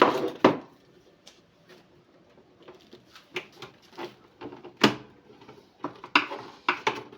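Irregular knocks and clicks from a record player being handled during repair, with a few sharper knocks near the start, just before the five-second mark and around six seconds.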